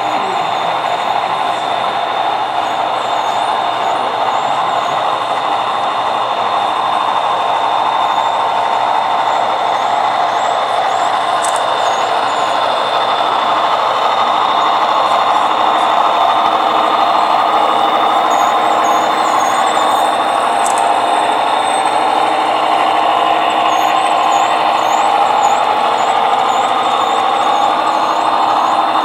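O-scale model trains running on the layout's track: a steady rumble and whir of wheels and motors, with a thin steady whine above it, getting louder about halfway through as the train passes close by.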